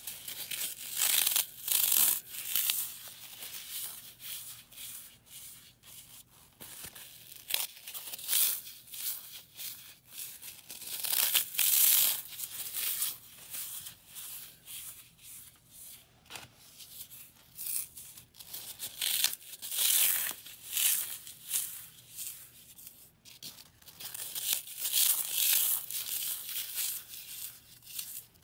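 Dry floral foam, dusted with baby powder and gym chalk, being squeezed and crumbled between the fingers: crunching and crackling that comes in repeated surges of a few seconds, with softer crumbling in between.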